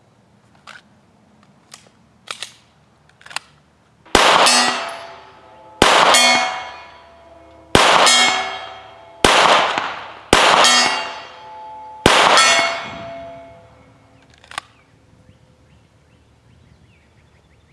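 Six 9mm shots from a Glock 17 pistol, fired one to two seconds apart, each followed by the ringing clang of a steel target being hit. A few light clicks of gun handling come before the first shot.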